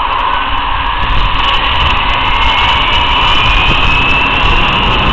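Zip-line trolley pulleys running along the steel cable, giving a steady high whine that drifts slightly in pitch, over a loud rush of wind as the rider picks up speed.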